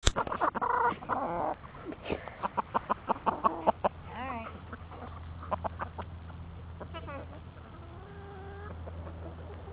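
Chickens clucking close up: a dense run of short clucks and taps in the first four seconds, then a few drawn-out calls, with a faint low hum underneath.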